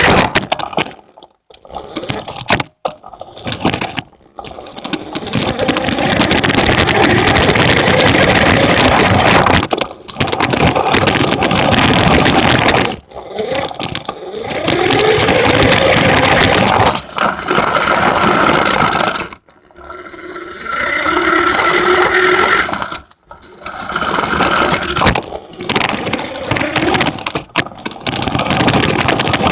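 Radio-controlled truck running in bursts, its motor whine rising and falling, with a dense noisy sound and several short pauses between runs.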